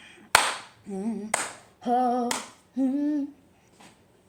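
A woman's voice humming or singing three short held notes, about a second apart. Between the notes come sharp, hissy bursts of noise, the first starting with a click.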